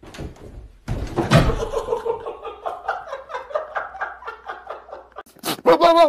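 A loud thump about a second in as a man falls against a door and onto the floor, followed by a person laughing hard in rapid, rhythmic bursts for several seconds. Near the end a goat bleats.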